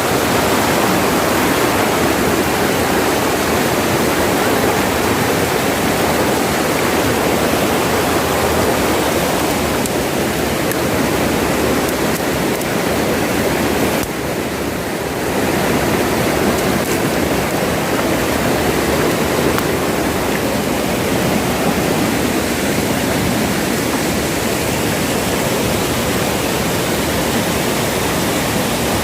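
Waterfall and river water rushing loudly and steadily, dipping briefly about halfway through.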